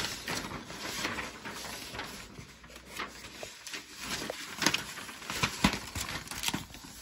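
A large sheet of paper rustling and crackling as it is unfolded, folded and handled, with a few sharper crackles past the middle.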